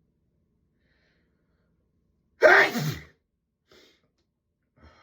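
A person sneezing once, loud and sudden about two and a half seconds in, the voice dropping in pitch as it trails off. Two faint short breaths follow.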